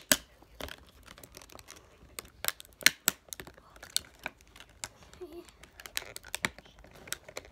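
Plastic toy packaging crinkling and crackling as it is pulled and torn open by hand: a string of irregular sharp crackles.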